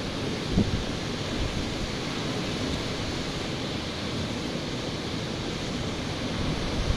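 Steady rush of ocean surf washing on a beach, mixed with wind on the microphone; a short low thump about half a second in.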